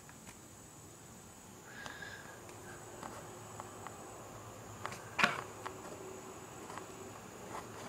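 Fingertips pressing and tapping small balls of polymer clay on a desk: scattered soft taps, with one louder knock about five seconds in, over a steady high-pitched whine.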